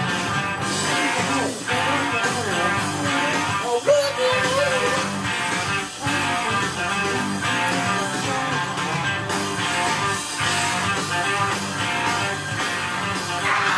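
Rock music: an instrumental stretch of the song carried by electric guitar, with no lead vocal line.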